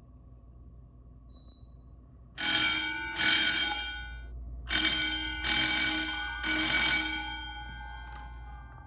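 Wheelock motor fire alarm bells ringing during a fire alarm system test. The ringing starts suddenly a little over two seconds in and comes in several bursts, each cut off and dying away, with a short gap after the first.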